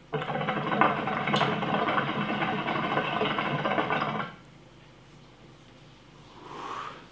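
Hookah being drawn on: water bubbling in the base as a fast, steady rattle for about four seconds, stopping abruptly. A softer breathy sound follows near the end.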